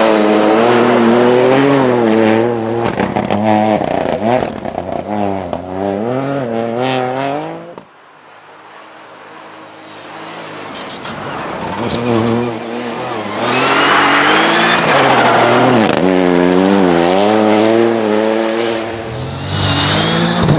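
Ford Fiesta R2T rally car's turbocharged three-cylinder engine revving hard, its pitch rising and falling with throttle and gear changes. The first run cuts off abruptly about eight seconds in. A few quieter seconds follow as a second run builds, then it revs loudly again, rising and falling.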